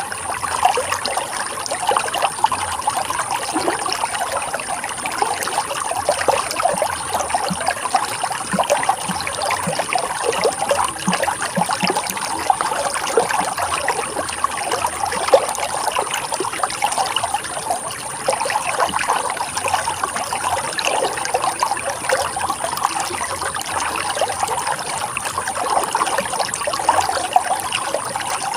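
Running water trickling and splashing steadily, a dense even babble of small splashes.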